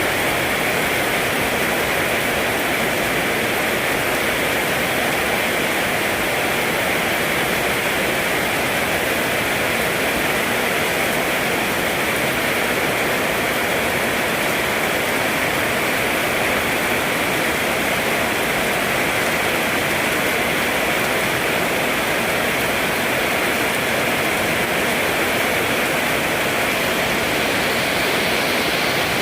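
Steady heavy rain falling, an even, unbroken hiss of water.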